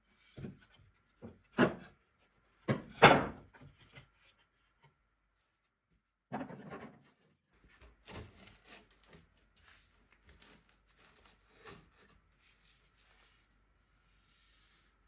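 Loose wooden boards and panels of an antique wooden chest knocking and scraping as they are shifted and pulled apart by hand. A few sharp knocks come in the first few seconds, the loudest about three seconds in, followed by quieter clicks and rubbing.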